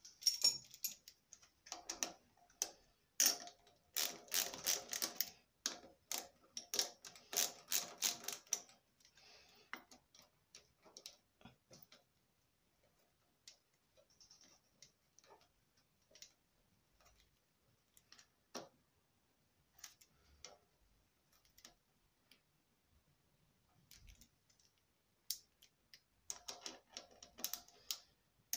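Clicking and rattling of bolts, nuts and hand tools as a CDI unit's metal mounting plate is repositioned on a motorcycle frame. A dense run of clicks fills the first nine seconds or so, then scattered single clicks follow, and they pick up again near the end.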